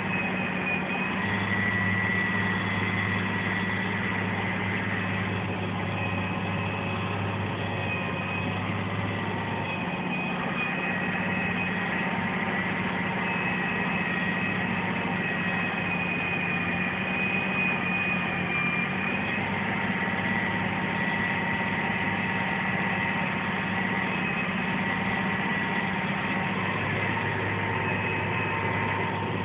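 Tractor engine running steadily, heard from inside the cab, with a steady high whine over the low engine note.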